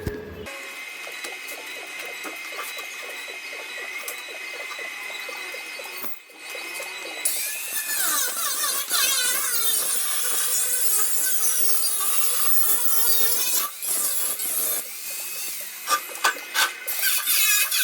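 Power tool working on the Vespa PX's sheet-steel body: a steady high whine, with loud harsh scraping from about seven seconds in and a few short breaks near the end.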